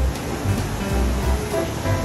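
Background music: short melody notes over recurring low bass notes, with an even hiss underneath.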